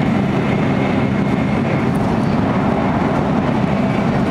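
Steady running noise of a high-speed train at full speed, heard from inside the passenger car: an even low rumble with no break.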